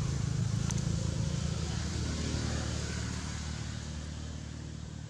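Low, steady engine rumble from a passing motor vehicle, slowly fading, with a faint click about a second in.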